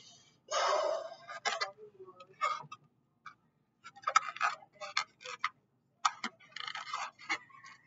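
A latex balloon being blown into with a half-second puff of breath near the start. It is then rubbed against a person's head, giving irregular short rubbing and squeaking strokes of the rubber.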